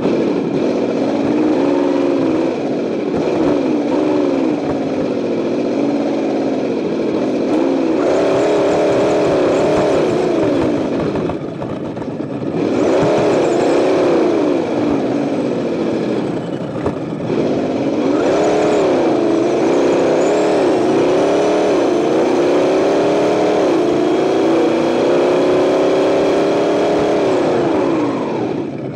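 Associated ESS-One sound unit in an RC truck playing a simulated engine sound through its speaker, revving up and down with the throttle. It eases off briefly twice near the middle, then climbs and holds high revs again.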